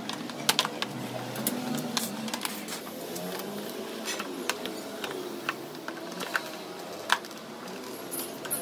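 Scooter plastic body panels being handled and pressed into place, with irregular sharp plastic clicks and knocks as the panel clips seat; the loudest clicks come about half a second in and near seven seconds.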